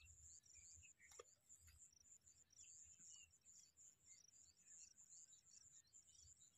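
Faint, steady high-pitched insect chirring in an even, rapid pulsing rhythm, with a soft tick about a second in.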